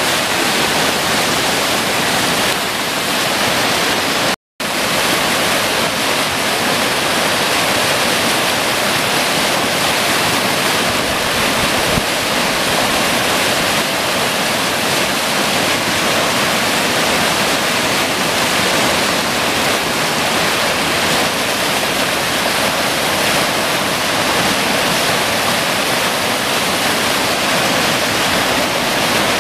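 Floodwater gushing out of a spillway outlet into a churning, foaming pool: a loud, steady rush of water from a flow swollen by heavy rain. The sound cuts out for a split second about four seconds in.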